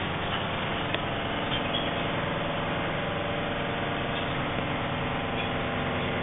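Steady low mechanical hum, like an engine running, with a few faint short high chirps over it.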